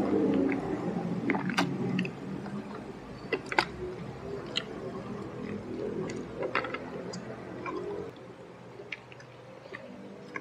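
A person eating rice and fried smashed chicken (ayam geprek) by hand, close to a clip-on microphone: soft chewing with irregular sharp, wet mouth clicks and lip smacks.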